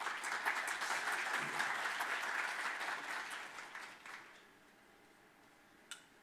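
Audience applauding, dying away after about four seconds, followed by a single light knock near the end.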